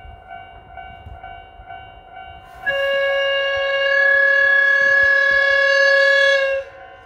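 Approaching train sounding one long horn blast of several tones together, starting about two and a half seconds in and cutting off about four seconds later. Under it, a level-crossing alarm dings steadily at a little under two strokes a second.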